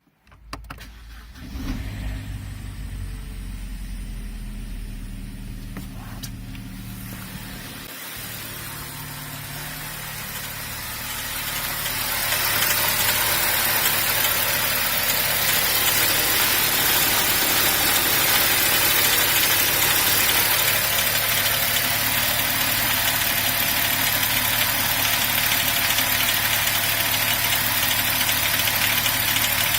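BMW 1 Series engine running, with the clattering the owner is recording as a fault. About ten seconds in the sound grows louder, with a strong high-pitched hiss and rattle over the low engine note, then holds steady.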